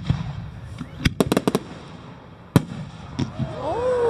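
Fireworks going off in sharp, irregular bangs: a quick run of cracks about a second in, a single bang a little later, and another near the end.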